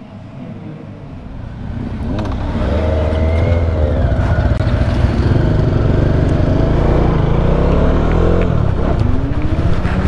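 Motorcycle engine pulling away and accelerating, getting louder about two seconds in, its pitch rising and falling as speed changes, with rushing wind noise over it.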